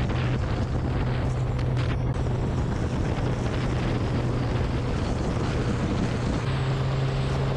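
Campagna T-Rex three-wheeler cruising at steady speed. Its BMW inline-six engine holds an even drone under wind and road noise, growing a little stronger near the end.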